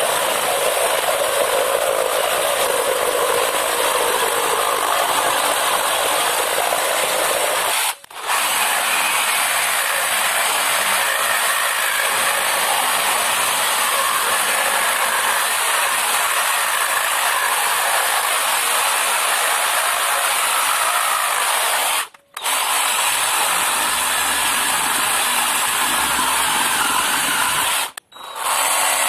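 IMAX IMRS20 20V cordless reciprocating saw running at full speed, its blade sawing through wood: a vise-clamped plank, then a round pole, then a branch near the end. The steady buzz of the saw breaks off briefly three times between the cuts.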